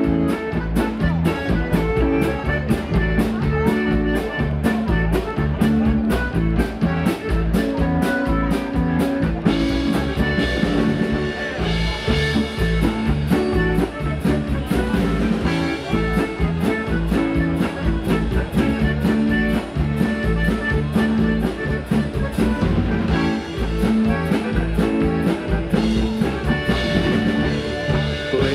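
Live polka band playing: accordion with electric guitar, keyboard and drum kit keeping a steady beat.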